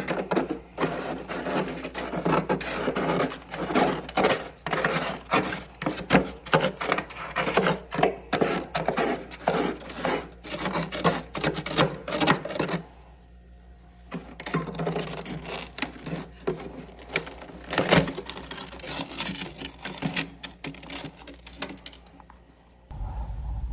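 Dense, rapid crunching and crackling of soft, powdery humidifier frost from a freezer tray. It breaks off for about a second around the middle, then resumes.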